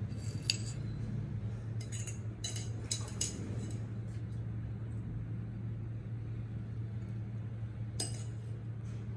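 Wire-mesh strainer clinking and tapping against a ceramic plate as shrimp and squid are tipped out. There are light clinks in the first few seconds and one more near the end, over a steady low hum.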